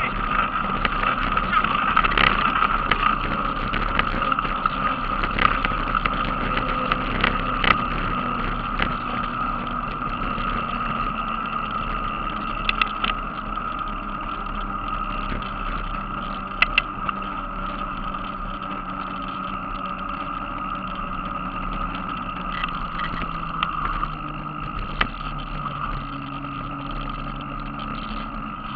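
Mountain bike rolling on asphalt, heard through a bike-mounted action camera: a steady rush of tyre and wind noise with a constant hum and scattered rattling clicks, easing off gradually in the second half.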